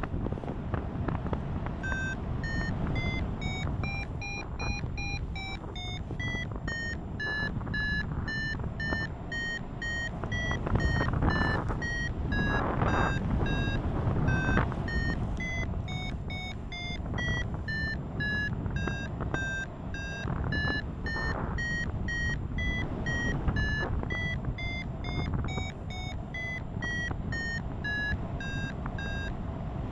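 Paragliding variometer beeping in short, even beeps, about two a second, the pitch rising and falling as the climb rate changes: the sign that the glider is climbing in lift. Wind rushes over the microphone underneath.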